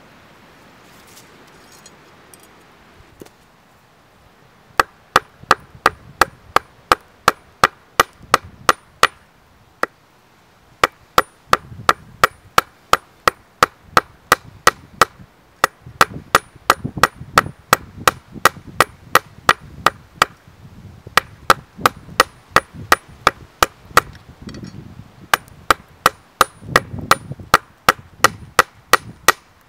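Hand hammer striking an iron rod on a hammer head used as an anvil, set in a wooden stump: sharp metallic clinks, about two to three a second, in several runs with short pauses, starting about five seconds in. The iron is only warm, not hot enough to forge.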